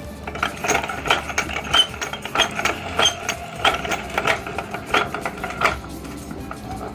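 Meat grinder crushing crisp wafer ice cream cones: a run of irregular sharp cracking crunches, a few a second, that stops about six seconds in.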